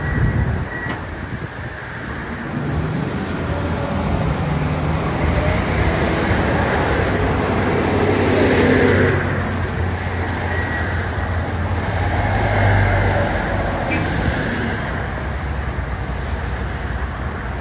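Heavy diesel engines of construction machinery running in a steady low drone. The sound swells about halfway through and again a few seconds later.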